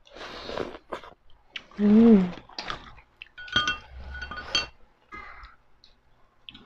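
Close-up mukbang eating noises: a wet mouth noise at the start, then a short hummed 'mm' that rises and falls in pitch about two seconds in, the loudest sound. Light clinks of glass and dishes ring out a few times around the middle, as a small hot-sauce bottle is handled over the plates.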